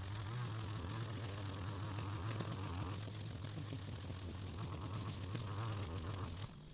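String trimmer running steadily, cutting long grass with a buzzing motor and the whir of the line; it cuts off abruptly near the end.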